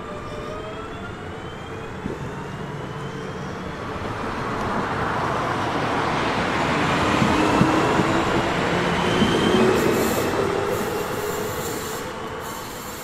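Electric multiple-unit trains: a DB class 425 pulls away with a whine that rises in pitch as it accelerates. Then rolling and wheel noise from a DB class 1440 Coradia Continental on the next track swells, is loudest about eight to ten seconds in with brief wheel squeal, and eases off.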